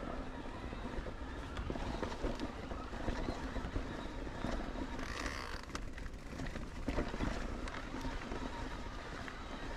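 Electric mountain bike ridden over a rough trail: tyres rolling over dirt and stones, with frequent rattles and knocks from the bike and wind on the microphone.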